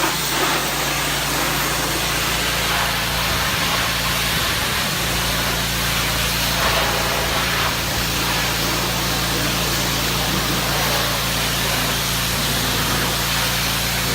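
Pressure washer spraying a steady hissing water jet onto a fire escape, with a steady low hum beneath.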